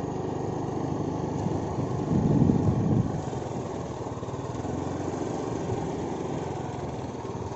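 Motor scooter running steadily while being ridden along the road, engine and road noise together, swelling briefly about two seconds in.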